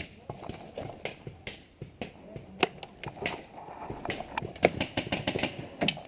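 Paintball markers firing: sharp pops in irregular volleys, coming faster for the last second and a half or so.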